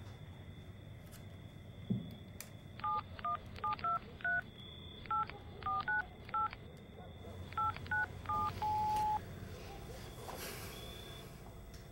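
Mobile phone keypad tones as a number is dialled: about a dozen short two-tone beeps in three quick groups, the last one held a little longer. A single knock comes about two seconds in, before the dialling.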